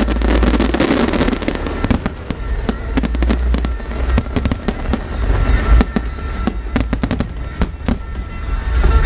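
An aerial fireworks display going off: a dense run of sharp bangs and crackles over a low rumble.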